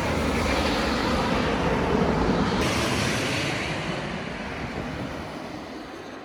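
Jet airliner engines passing by. The noise builds to a peak about two seconds in, then fades away steadily.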